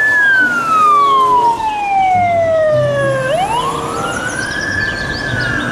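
Fire engine siren wailing: its pitch falls slowly for about three seconds, then rises back up and holds high before starting to fall again near the end.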